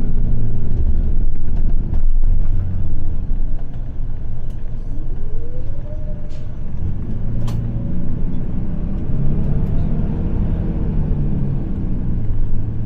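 Bus engine running with a steady low rumble; about five seconds in the engine note rises and then holds as the bus pulls along.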